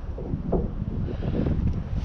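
Wind buffeting the microphone: an uneven low rumble that rises and falls.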